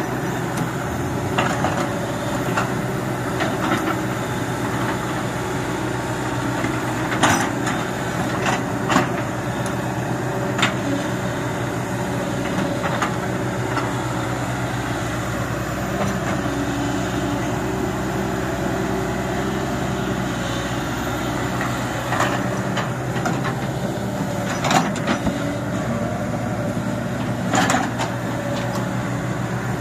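Sumitomo crawler excavator's diesel engine running steadily under load. About ten sharp knocks come through it at uneven intervals.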